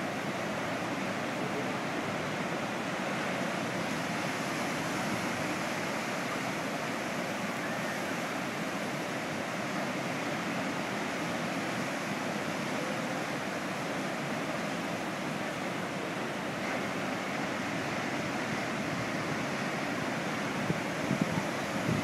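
Steady, even wash of ocean surf mixed with wind.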